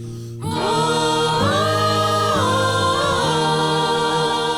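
Music: a slow a cappella gospel hymn carrying on with held notes and no words, one line sliding up into a long note about a second and a half in.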